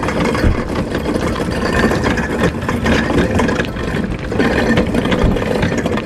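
Empty metal platform hand trolley rolling over rough asphalt, its hard wheels rumbling and the frame and loose box on it rattling steadily.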